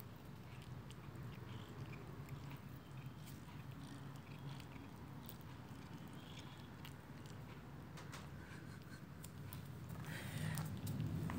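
Cat biting and chewing blades of potted grass: faint soft clicks and crunches, with a low steady hum underneath and a louder rustle near the end.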